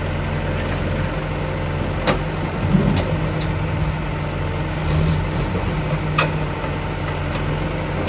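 FB110.2 backhoe loader's diesel engine running steadily as the backhoe bucket works through masonry rubble. Sharp knocks of bucket and broken masonry come about two seconds in and again about six seconds in.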